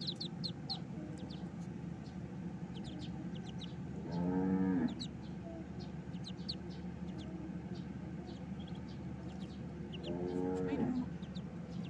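Muscovy ducklings peeping: many short, high cheeps scattered throughout. Twice, about four seconds in and near the end, a longer, lower call rises and falls and stands out above the peeping.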